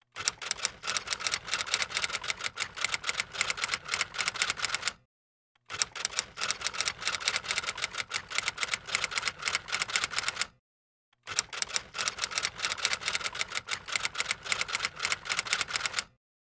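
Typewriter keys clacking in rapid, continuous typing. It comes in three runs of about five seconds, each cut off abruptly by a brief dead silence.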